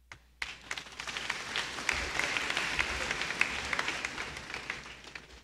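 A crowd clapping. It opens with a few scattered claps, swells into full applause, then fades out near the end.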